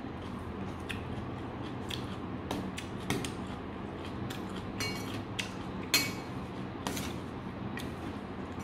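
Metal spoon scraping and clinking against a stainless steel bowl while scooping rice, a series of light taps and scrapes with a sharper clink about six seconds in, over a steady low hum.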